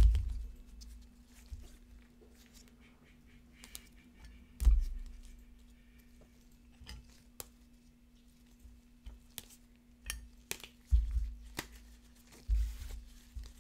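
Plastic card holders being handled and set down on a tabletop: scattered clicks and knocks, with a few louder thumps, over a faint steady hum.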